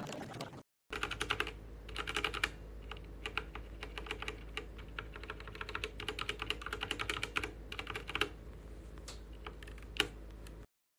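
Typing on a mechanical keyboard fitted with ABS cat-paw keycaps: fast runs of key clacks broken by short pauses, stopping abruptly near the end.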